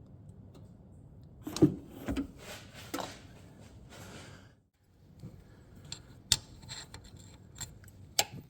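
Clicks, knocks and rustling of parts and tools being handled during an oil change, loudest early on, with a few sharp clicks later and a brief drop to silence about halfway.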